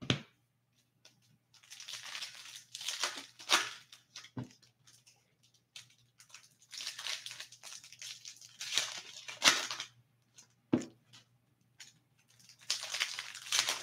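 Foil hockey card pack wrapper torn open and crinkled by hand, in three stretches of tearing and rustling, with a sharp click at the start and another near the end.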